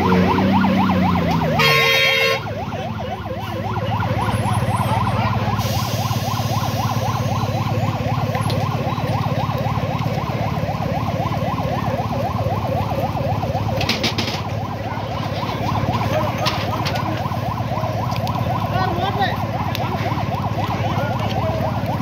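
Emergency vehicle siren wailing in a fast, continuous warble over a low engine rumble, with a brief loud tone about two seconds in.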